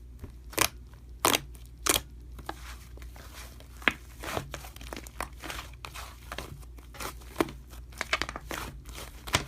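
Slime being squished and handled, with a series of sharp clicks and crinkly crackling between them.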